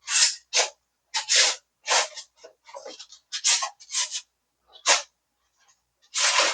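Styrofoam insulation board rubbing and scraping in about ten short, irregular strokes.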